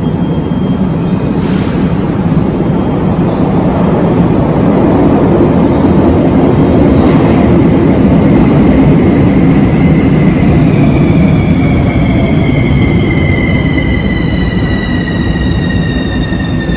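CAF-built metro train pulling into an underground station. The heavy rumble of its wheels and running gear builds as it enters and peaks about halfway through. In the second half the traction motors' whine glides steadily down in pitch as the train brakes to a stop.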